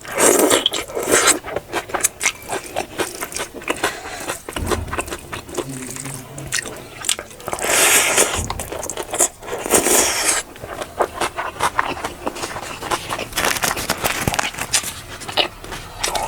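Close-up eating sounds: chewing and mouth noises over biryani and fish curry, with scraping on the plate and several louder bursts of noise near the start and about eight and ten seconds in.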